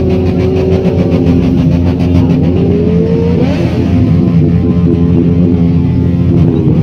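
Benelli 600i motorcycle's inline-four engine running loud, its pitch rising as it is revved about three seconds in and easing back down.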